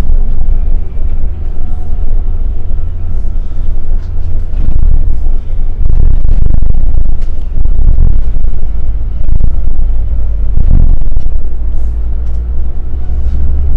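Scania K360iB coach under way, a loud steady low rumble of engine and road noise heard inside the cabin, with light rattles and knocks from the interior.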